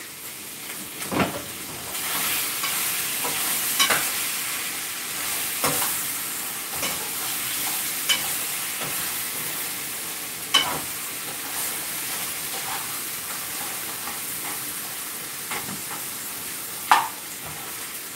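Pork ribs sizzling in a frying pan, a steady hiss that swells about two seconds in, with a metal spoon clinking and scraping against the pan as they are stirred every few seconds; one sharper clank near the end.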